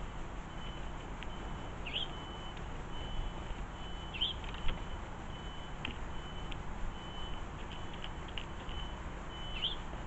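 Three short, rising bird chirps, about 2 s, 4 s and near the end, with a thin high whistle coming and going between them, over a steady low rumble. A few short clicks, the sharpest a little before halfway.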